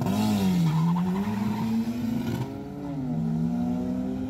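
A car engine running, its pitch falling and rising a few times as the revs change.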